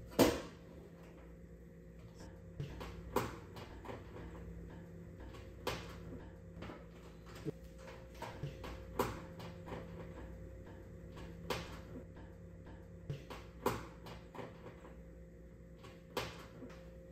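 Irregular clicks and knocks of a screwdriver and small screws and plastic parts being handled while screws and locks are taken out of a flat-screen TV's inner panels, the loudest just at the start, over a faint steady hum.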